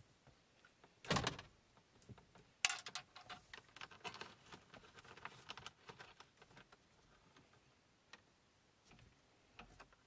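Wires and plastic dash parts being handled by hand: one loud rustle about a second in, then a run of small clicks and taps for a few seconds as cables are tucked into the dashboard cavity, thinning out to a few ticks near the end.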